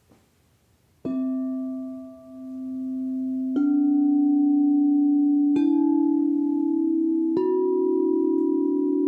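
Sound bowls struck one after another, four strikes about two seconds apart starting a second in, each new bowl a little higher in pitch. Each keeps ringing with a long, steady tone, so the tones layer into a sustained chord; the first one wavers in loudness as it rings.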